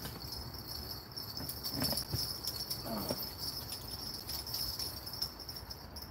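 Insects trilling steadily in a high-pitched chorus, with a couple of faint, brief noises about two and three seconds in.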